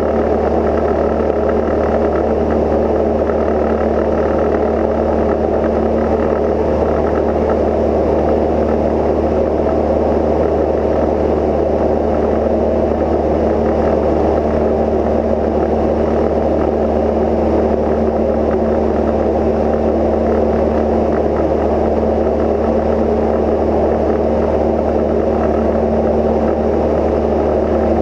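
Cozy Mk IV's piston engine and pusher propeller droning steadily in cruise flight, with a constant low hum and no change in pitch.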